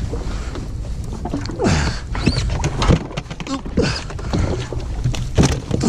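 Irregular knocks and thumps as a freshly bled lingcod is handled into the jet ski's cooler and the lid is shut down on it, over steady water and wind noise.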